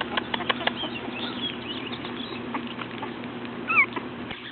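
Almost four-week-old French bulldog × pug puppies scuffling and moving about, with many small clicks and scrapes and one short high falling squeak a little before the end.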